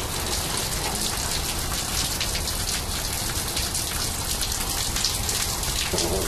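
Steady rain falling, with many separate raindrop hits.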